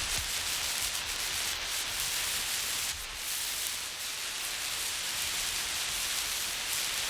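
Emergency road flare burning with a steady, hissing rush, dipping slightly about three seconds in.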